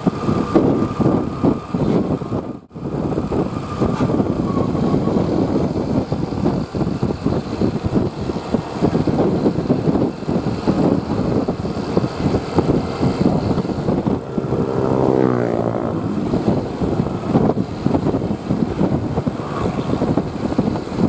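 Bus engine and traffic noise, loud and unbroken except for a momentary cut a little under three seconds in. About two-thirds of the way through, a horn sounds briefly with a sliding pitch.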